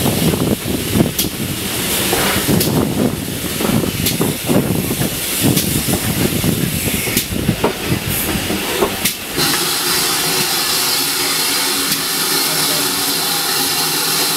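Steam-hauled train moving along a station platform: a low rumble with irregular clanks and clicks from the wheels and couplings. About nine seconds in, a steady hiss of steam from the locomotive sets in abruptly and takes over.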